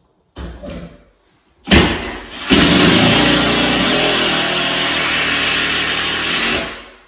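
Red cordless drill driving a long screw through a wooden French cleat into a wall stud: a short spurt, a brief burst, then about four seconds of loud, steady driving that stops as the screw seats.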